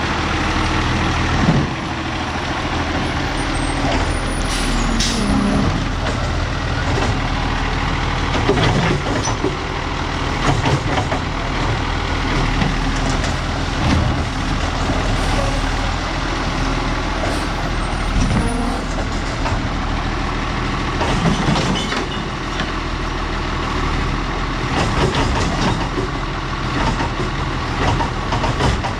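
Side-loading garbage truck's diesel engine running steadily, with brief air hisses, one about five seconds in, and scattered mechanical knocks.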